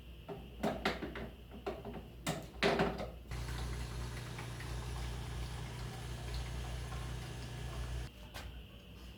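A few knocks and clicks, then an espresso machine's pump runs with a steady hum for about five seconds while coffee pours as the shot is extracted. The pump stops near the end.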